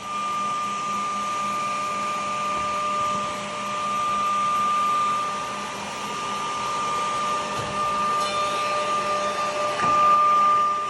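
Falcon CNC edge banding machine running: a steady motor noise with a constant high-pitched tone and a low hum, swelling slightly a few times.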